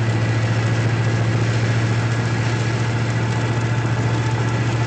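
Steady drone of a car's engine and tyres on a rain-wet road, heard from inside the cabin while driving, with a low hum and an even hiss.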